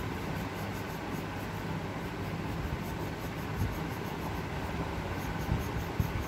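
Coloured pencil scratching on paper in quick, even shading strokes, several a second, over a steady low background rumble.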